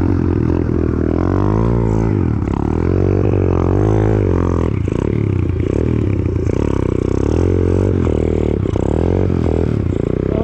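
Apollo RFZ 125 pit bike's single-cylinder four-stroke engine revving up and down repeatedly while ridden on snow, its pitch rising and falling every second or two.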